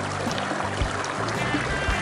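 Flowing stream water, a steady rushing hiss, mixed with a calm melody of sustained low notes and soft low beats about once a second.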